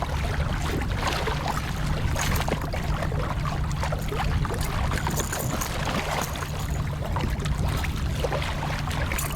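Water splashing and sloshing around a kayak, with scattered knocks and clicks from handling gear on the hull, over a steady low hum.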